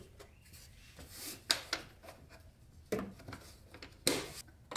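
Plastic air filter box lid on a Ram 1500 EcoDiesel being pressed into place by hand and its snap clips closed: soft plastic rubbing with a handful of short clicks and knocks spread through it.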